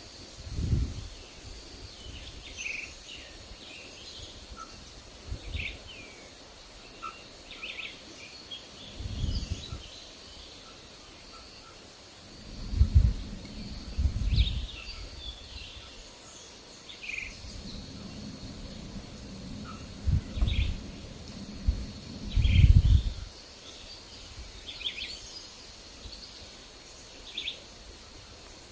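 Forest ambience: scattered short bird chirps over a faint steady insect hum. Several low gusts of wind buffet the microphone, the loudest in a long spell about two thirds of the way through.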